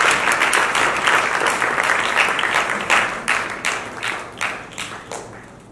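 Audience applauding: thick at first, then thinning to scattered separate claps that die away near the end.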